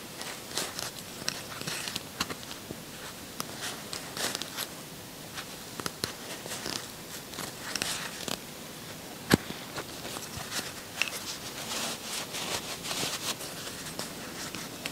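Crochet hook and yarn being worked stitch by stitch: soft, irregular rustling and small clicks, picked up close on a clip-on microphone, with one sharper click about nine seconds in.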